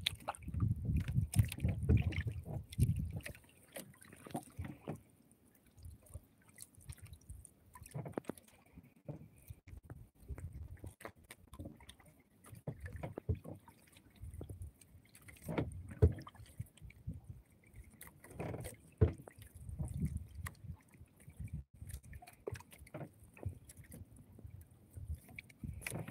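Water lapping and gurgling against the hull of a small boat, with irregular low rumbles and scattered knocks and clicks, a couple of sharper knocks past the middle.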